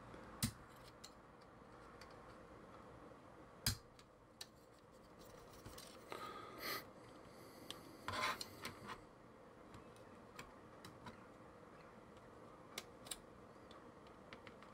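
Faint handling of small plastic miniature parts being fitted and pressed together: a few separate sharp clicks and a couple of short scraping rubs.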